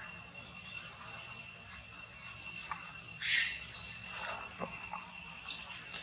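Two short, loud, high squeals about three seconds in, typical of a baby monkey crying for its mother, over a steady high drone of insects.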